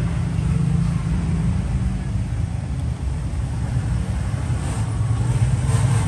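A steady low rumble of background noise, with a few light clicks near the end.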